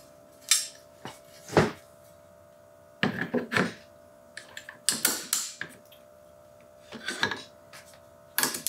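Sharp metallic clicks and clacks, in several short groups, as an LMT MWS (AR-10) upper receiver is handled and seated on the lower receiver and the takedown pins are pushed in. The pins go in easily, the fit now freed up.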